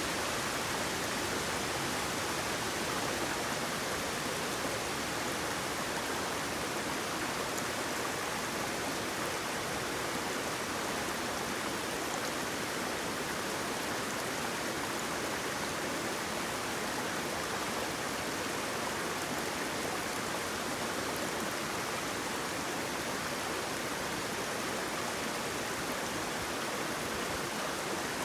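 Water flowing and splashing as a steady, even rush, from a small waterfall or stream.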